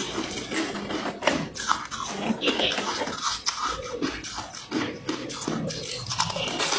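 A person biting and chewing chunks of frosty ice close to the microphone: a rapid, uneven run of sharp crunches.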